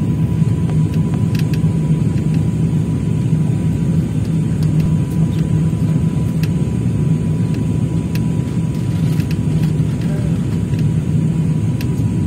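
Steady low rumble of a jet airliner's engines and rushing air heard inside the passenger cabin, with a faint steady high whine over it.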